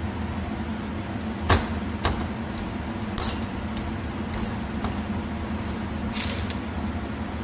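Metal parts clinking and knocking as a hydraulic pump is handled and set onto a tractor's control valve body, over a steady background hum. The loudest knock comes about a second and a half in, with lighter clinks scattered after it and another near the end.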